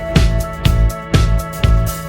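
Background music with a steady beat, about two drum hits a second under sustained tones.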